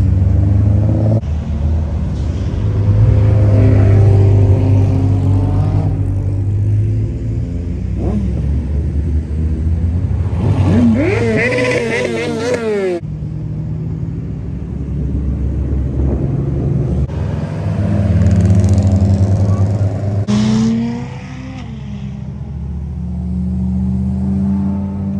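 Deep, steady rumble of car engines and exhausts, with a pitched sound that rises and falls about halfway through.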